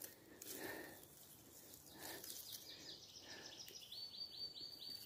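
A small songbird sings a series of evenly repeated high notes, about four a second, starting about halfway through. Under it are faint rustles, as of steps on the forest floor.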